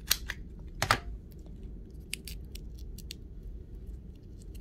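Green plastic 5/8 inch craft hole punch snapping shut and springing back with sharp clicks in the first second, punching a nail polish strip, followed by a run of lighter clicks and taps.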